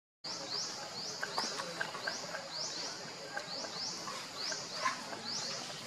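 Outdoor animal chirping: a short, high, rising chirp repeated about twice a second over a steady background hiss, with faint scattered ticks.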